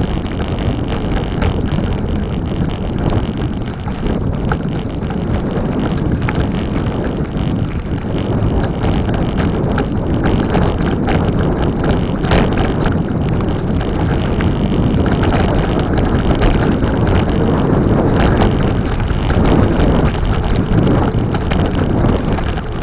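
Wind buffeting the microphone of a camera riding along on a moving bicycle: a loud, steady low rumble with scattered clicks through it.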